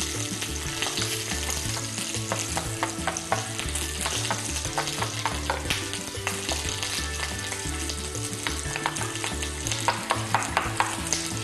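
A spoon stirring a thick mix of yogurt, tahini and flour in a small glass bowl, clicking and scraping against the glass many times. Under it, the steady sizzle of zucchini frying in oil in a pan.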